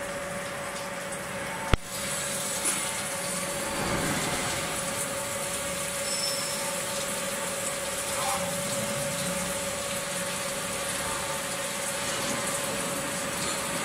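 CNC plate drilling machine drilling a metal plate, its spindle running with a steady whine while liquid coolant sprays onto the bit. One sharp click comes about two seconds in.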